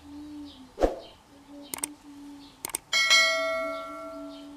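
Like-and-subscribe button sound effect: a thump, two quick double clicks, then a notification bell rings once and fades over about a second and a half.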